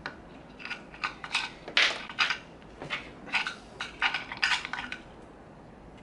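Small metal parts clicking and scraping in irregular short strokes: an Allen key turning the mounting screw as a Beachtek DXA-MICRO-PRO adapter is fixed onto its mount.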